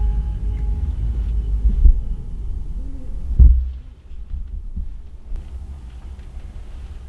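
Low, steady rumble with two heavy thumps, about two and three and a half seconds in; it eases after the second thump.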